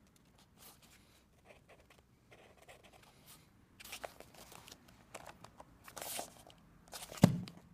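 Paper handling: faint scratchy marker strokes on paper at first, then louder rustling and rubbing as hands slide and shift a kraft-paper sketchbook, with a sharp knock near the end.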